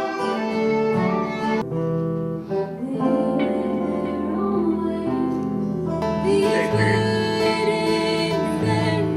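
Acoustic string-band music: guitar with a bowed string line. Wavering held notes come in about six seconds in.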